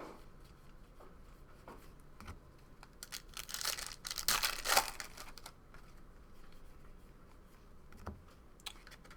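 Trading card pack wrappers crinkling and tearing as cards are handled, with a louder stretch of rustling a few seconds in and a few light clicks.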